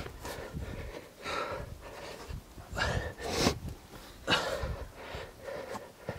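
A person breathing hard from the effort of climbing over rocks, about five loud breaths spaced through the moment.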